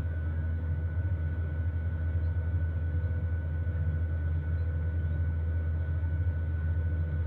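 Simulated aircraft cabin noise, a steady airliner drone heavy in the low end with a thin, steady high hum over it, played as the test sound for the earbuds' active noise cancellation.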